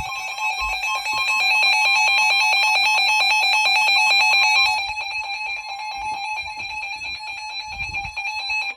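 Sangean weather radio sounding an emergency alert: a loud electronic alarm made of several steady tones with a fast pulsing warble. One steady tone near 1 kHz, typical of the NOAA Weather Radio warning alarm tone, stops about five seconds in, and the rest cuts off suddenly near the end. It signals a new warning about to be broadcast.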